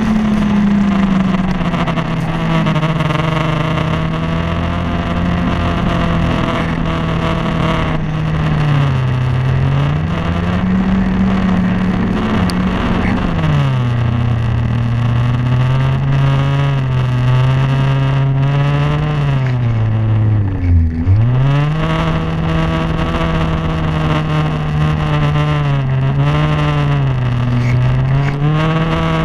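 Snowmobile engine running hard under load, its pitch rising and falling as the throttle changes. About two-thirds of the way through, the revs drop sharply, then climb back up.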